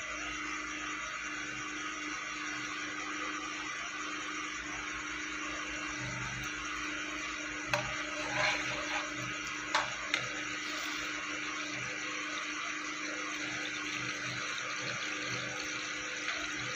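Steady hiss from a pan of cooking oil heating over a wood fire in a mud stove, with a few light clicks about eight and ten seconds in.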